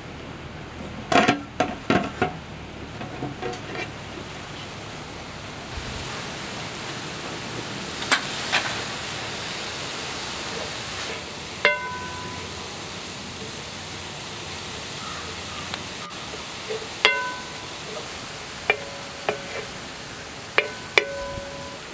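A metal lid clanking against a brass uruli, then a spoon stirring jackfruit thoran in the pan over a steady hiss of cooking. Several times the spoon strikes the vessel and it rings out briefly with a clear metallic tone.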